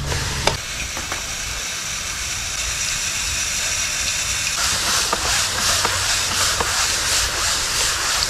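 Steady hissing of water and stiff brushes scrubbing a soapy window screen as it is worked through a Xero screen cleaner's brush columns; the scrubbing grows louder about halfway through.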